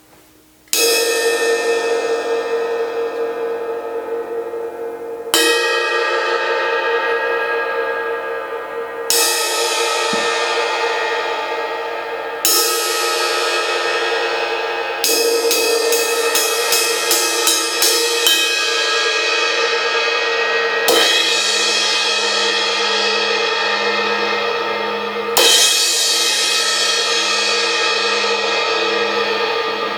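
Zildjian 18-inch A crash ride cymbal struck seven times a few seconds apart, each crash ringing out and slowly fading. Around the middle it is ridden with a quick run of even strokes, about three or four a second, for a few seconds.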